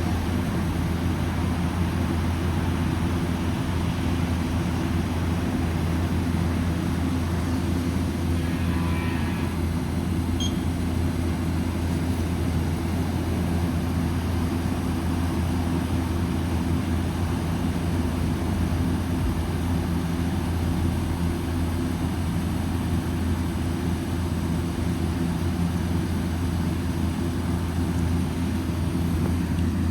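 Orion RKE2200B1-V-G2 inverter chiller running steadily on test run: a constant, even low hum with a few steady tones over it.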